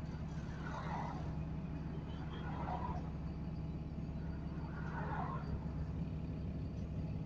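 Steady low drone of an Alexander Dennis Enviro400 double-decker bus on a Dennis Trident 2 chassis, its diesel engine and running gear heard from inside the passenger saloon while the bus cruises.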